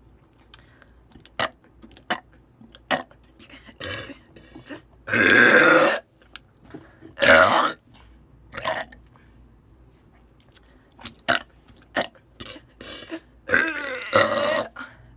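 A woman belching repeatedly. There are three long, loud burps of about a second each: one about five seconds in, one just after seven seconds and one near the end. Shorter, quieter burps and small clicks fall between them.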